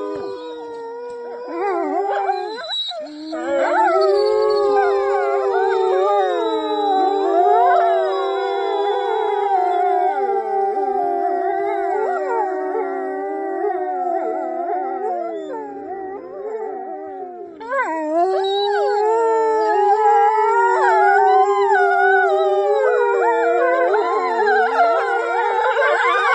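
A pack of canids howling together in chorus: many long, overlapping howls that glide up and down in pitch. They thin out briefly past the middle, then come back louder.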